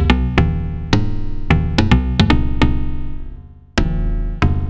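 Modular synthesizer notes pinged through the Make Noise DXG low-pass gate: a run of short plucky notes, each starting bright and turning duller as it quickly decays. The notes die away a little after 3 seconds in, and a new run starts just before 4 seconds.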